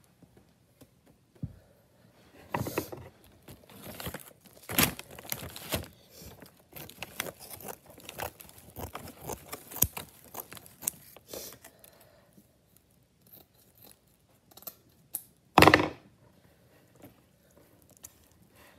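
Irregular handling noises: clicks, light scraping and crinkly rustling in quick succession for several seconds, then one short, loud noise a few seconds later.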